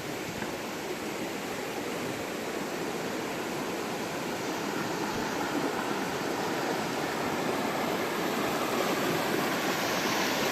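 Waterfall rushing steadily, growing gradually louder.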